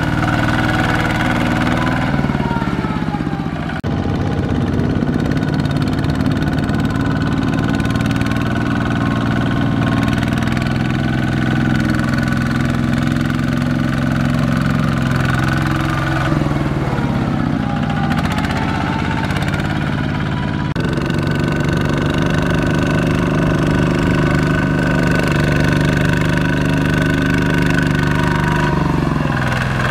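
The single-cylinder diesel engine of a two-wheel walking tractor runs hard under load as it drags a loaded trailer through deep paddy mud. Its note sags and picks up again a few times.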